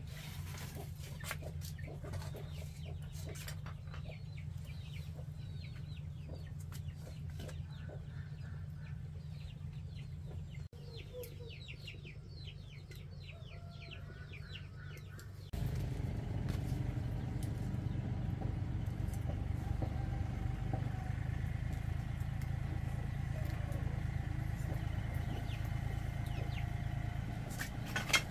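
Chickens clucking, with short high chirps, over a steady low hum. About halfway through, the sound switches abruptly to a louder, steady motor drone. A sharp knock comes near the end.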